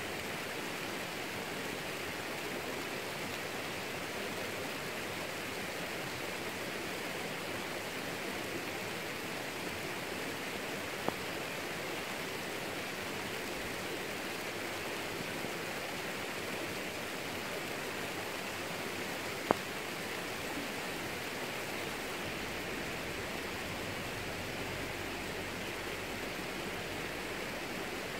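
Steady rain falling on garden plants, an even hiss. Two single sharp ticks stand out, a faint one about a third of the way through and a louder one about two-thirds through.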